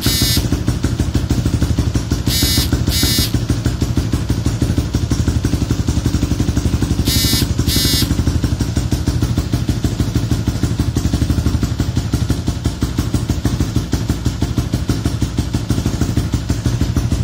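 Vespa scooter engine idling steadily, with an even, fast pulse and no revving. Two pairs of brief high chirps cut in over it, a few seconds in and again about halfway.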